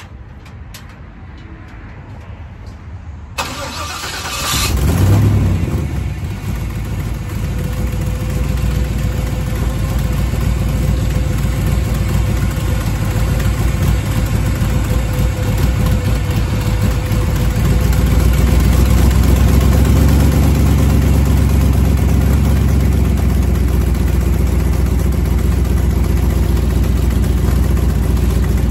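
1959 Cadillac Miller-Meteor ambulance's V8 engine starting: a sharp click about three and a half seconds in, then the engine catches with a brief rev about five seconds in. It then runs steadily, a little louder from about eighteen seconds on.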